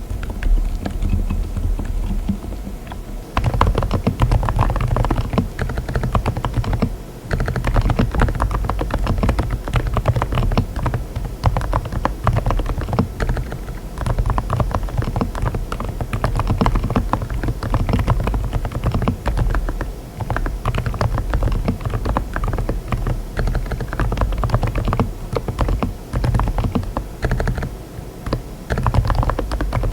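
Continuous fast typing on a mechanical keyboard fitted with silent tactile switches: a dense run of keystrokes. A brief pause about three and a half seconds in marks the change to Saebyeok silent tactile switches.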